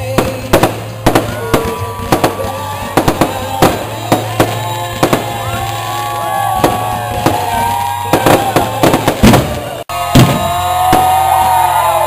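Fireworks launching and bursting in quick succession: many sharp bangs and crackles, with clusters of them about the first half and near the end.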